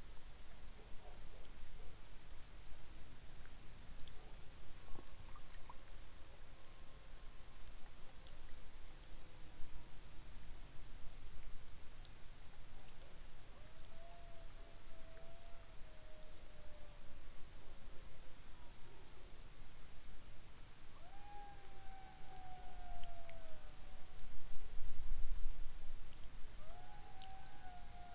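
Golden jackals howling in the distance: a few long, wavering calls from about halfway through, one sliding down in pitch, over a steady high chorus of insects.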